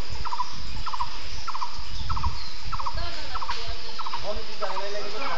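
An animal calling over and over: short rattling calls, each three or four quick pulses, repeating about every half second or so.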